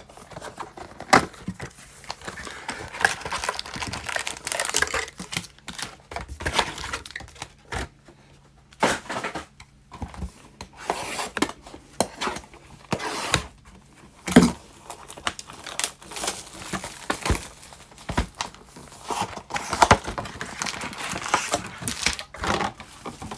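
Cellophane shrink wrap and foil trading-card packs crinkling and tearing as they are unwrapped and handled, with scattered light knocks of cardboard card boxes set down and moved on the table.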